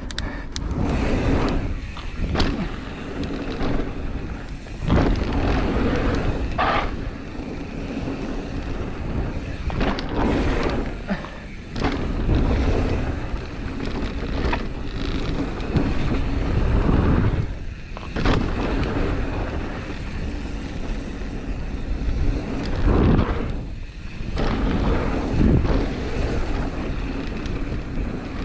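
Wind buffeting the microphone as a mountain bike descends a downhill trail, with tyre rumble and repeated knocks and rattles as it runs over rough ground.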